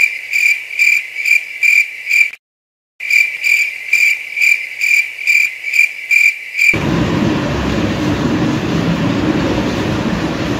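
Cricket chirping, used as a stock sound effect: even chirps at one high pitch, nearly three a second. They drop out for half a second about two and a half seconds in and stop abruptly about seven seconds in. A steady rushing noise follows.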